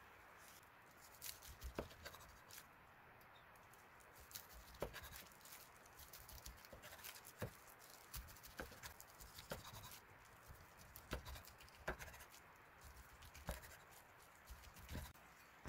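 Chef's knife slicing through a gimbap roll, each cut ending in a sharp knock on the wooden cutting board, about once a second.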